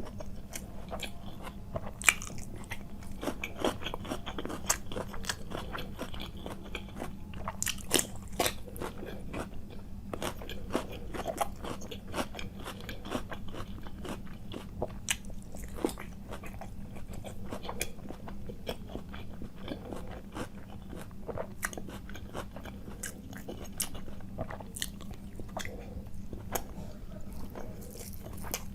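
A person chewing and biting food close to the microphone, with many short crunching clicks throughout.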